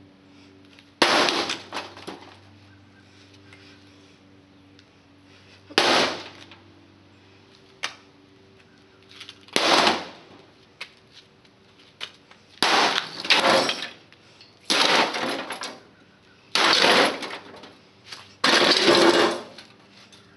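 Metal space heater housing being smashed: about eight loud, crashing impacts with a rattle after each, coming closer together in the second half.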